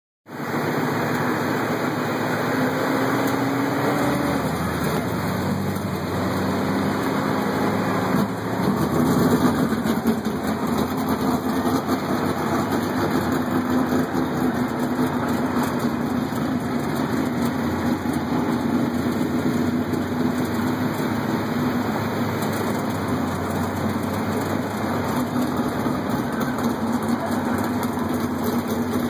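Engine noise heard from inside a push truck's cab as it push-starts a winged sprint car on a dirt track. The sprint car's V8 fires and runs ahead, and the sound gets louder about eight seconds in.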